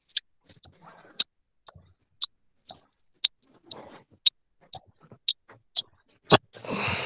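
Light, even ticking about twice a second over faint rustling from a phone being turned around and handled, with a sharp knock near the end followed by a brief burst of rustling.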